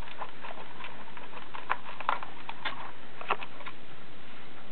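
Scattered light clicks and ticks of a screwdriver working screws in the white plastic shell of a DJI Phantom 3 Professional quadcopter, over a steady hiss.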